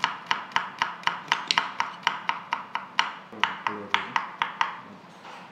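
Kitchen knife chopping garlic on a wooden cutting board: a quick, uneven run of about twenty knocks, four or five a second, that stops near the end.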